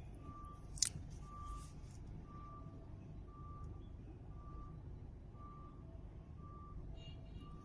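A reversing alarm beeping steadily, one tone about once a second, over low background noise; a single sharp click a little under a second in.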